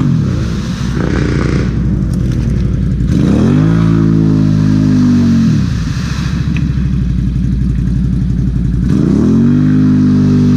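ATV engine revving hard with its wheels spinning in deep mud, trying to climb out of a rut. The engine climbs and holds high twice, about three seconds in and again near the end, dropping back lower in between.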